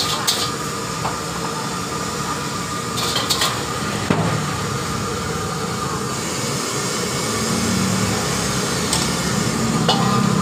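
Gas wok stove burning with a steady rushing sound while a steel wok is swirled on it, the wok clinking against the stove at the start, around three seconds in, and near the end. A low hum grows louder in the second half.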